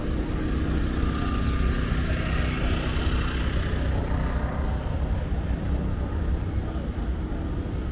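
Steady low rumble of city traffic, with a vehicle passing that swells and fades over the first few seconds.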